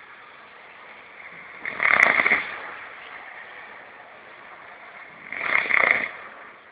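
A person snoring: two loud snores about three and a half seconds apart, each lasting under a second, with a steady faint hiss between them.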